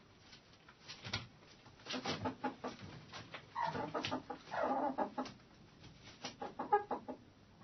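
Hens clucking in a chicken coop: a run of short clucks, with two longer drawn-out calls near the middle.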